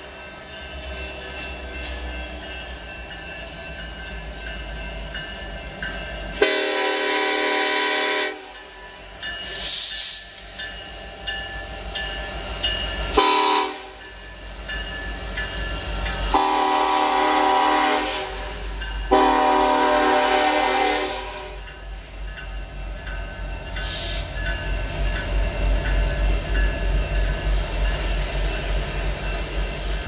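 Horn of a BNSF EMD SD70ACe diesel locomotive sounding for a grade crossing: one long blast, a short one, then two long ones, each several tones at once. Under the horn a low rumble from the approaching train grows, turning into rhythmic wheel clatter over the last several seconds.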